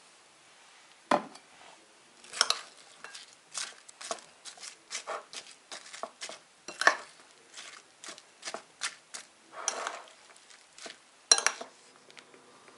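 A metal fork clinking and scraping against a ceramic plate in quick, irregular taps while stirring sliced fish and onions in marinade, with one sharper knock about a second in.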